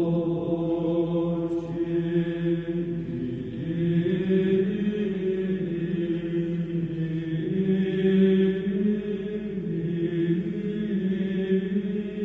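Slow music of long held notes that shift to new notes every few seconds.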